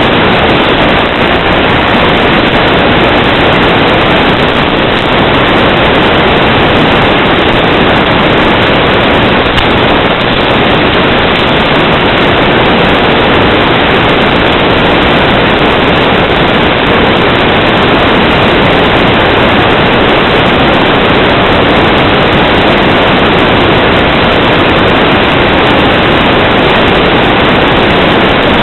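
Loud steady hiss of static from an analog FPV video downlink's audio channel, an even noise with no tones or changes in it.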